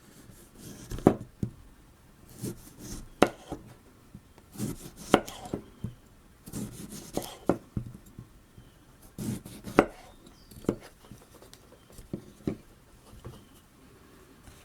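A folding knife's steel blade cutting and shaving a stick of fatwood, a series of irregular scraping strokes and sharp knocks of wood.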